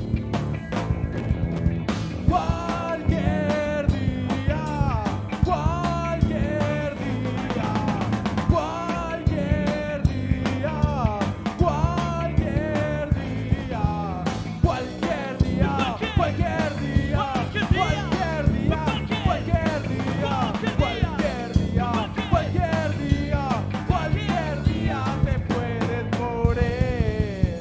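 Rock band playing live: drums, bass and guitar, with a melody line that bends up and down in pitch over a steady beat.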